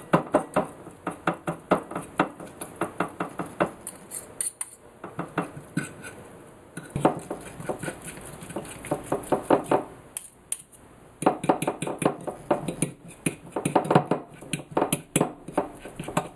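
Two metal forks tapping and scraping against a plate in quick runs while shredding baked fish, with short lulls about four seconds and ten seconds in.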